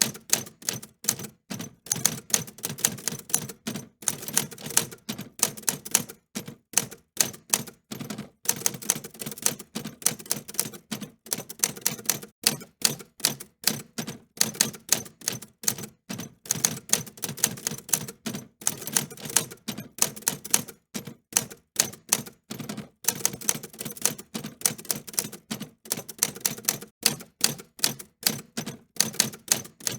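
Typewriter keys being struck in quick irregular runs, several clicks a second with brief pauses between bursts.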